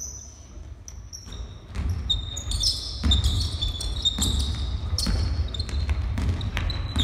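Basketball game on a hardwood gym floor: the ball thudding as it is dribbled and passed, with players' sneakers squeaking in short high chirps and their footsteps. The play gets busier and louder about two seconds in.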